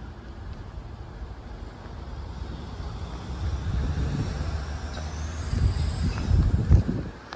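A road vehicle passing close by: a low rumble that builds and is loudest about six seconds in, with a faint high squeal, then cuts off suddenly near the end.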